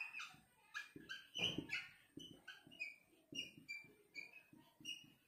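Marker squeaking on a whiteboard in many short strokes, several high squeaks a second, as words are handwritten.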